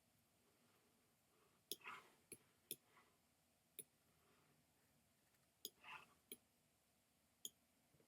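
Computer mouse clicking, about seven single sharp clicks spaced irregularly, with near silence between them.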